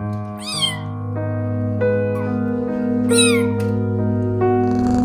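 Background instrumental music with sustained notes. Over it, a newborn kitten mews twice, high-pitched and short, about half a second in and again about three seconds in.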